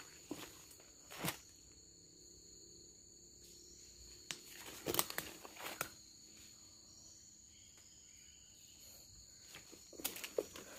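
Footsteps through forest undergrowth: scattered crackles and rustles of leaves and twigs, loudest about a second in, midway and near the end. Underneath, insects drone steadily at two high pitches.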